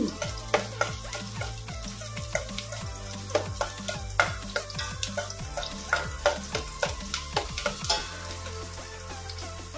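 Onion, garlic and ginger sizzling as they sauté in hot oil in a pot, with a cooking utensil clicking and scraping against the pot at irregular intervals as they are stirred.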